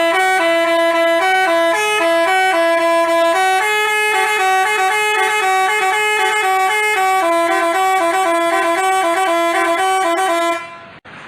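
Bus 'telolet' basuri horn playing a tune: a run of loud stepped horn notes that changes pitch every fraction of a second. It cuts off shortly before the end.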